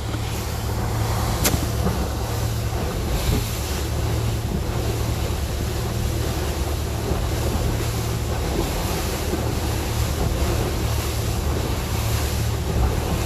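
A boat's motor running steadily under way, a constant low hum under the rush of water and wind buffeting the microphone, with one sharp click about a second and a half in.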